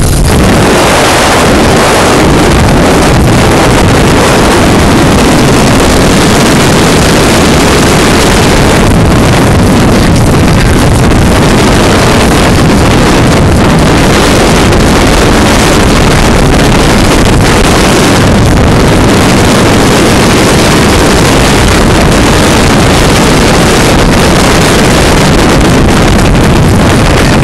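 Motorboat running under way, with heavy wind blasting across the phone's microphone; loud and steady throughout.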